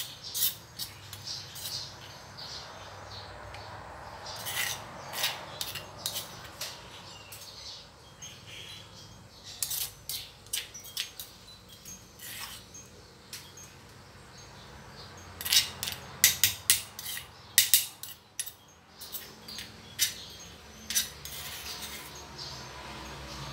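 Metal spoon clinking and scraping against a stone mortar as chili paste is scooped out into a bowl, in irregular taps with a dense cluster about two-thirds of the way through.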